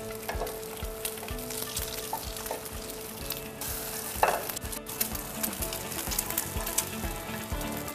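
An egg frying in hot oil in a frying pan on a gas burner, sizzling and crackling steadily. About four seconds in there is a brief, louder scrape of the spatula in the pan.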